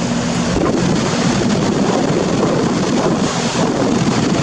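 Carrier heat pump outdoor unit running, its fan air rushing steadily across the microphone. The low hum gives way to the rushing noise about half a second in.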